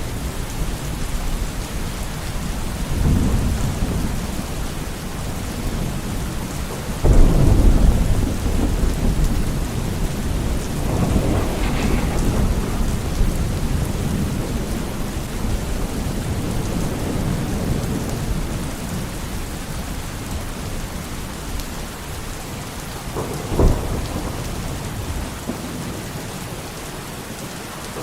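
Steady rain with thunder rolling through it: a low rumble a few seconds in, a sudden louder clap that rolls on, another rumble, and a short sharp crack near the end.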